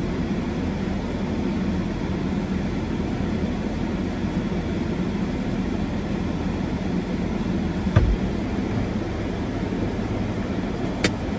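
Steady road and engine noise inside a moving car's cabin, with a single thump about eight seconds in and a click near the end.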